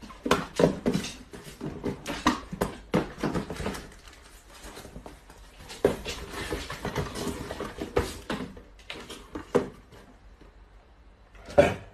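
Small cardboard boxes being handled, knocked together and set down, making irregular knocks and rustles, with a quieter spell near the end.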